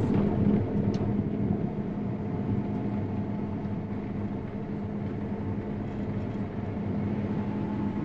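Combine harvester's engine and drivetrain humming steadily, heard from inside the cab while the machine drives across the field. A little louder in the first second, then even.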